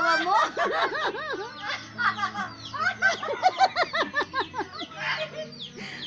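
Hill myna calling: a rapid run of short whistled notes, each rising and falling in pitch, with brief pauses between runs.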